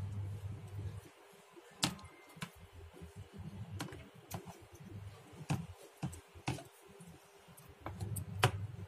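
Metal spoon tapping and clicking against a plastic box and the custard-soaked biscuits as custard is spooned over and spread: irregular light clicks, about one a second. A low hum runs under the first second and comes back near the end.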